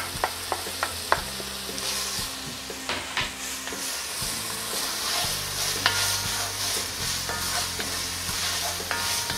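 Diced carrot, celery, onion and garlic sautéing in olive oil in a heavy Dutch oven, sizzling steadily as they are stirred with a wooden spoon, with a few sharp knocks in the first second or so.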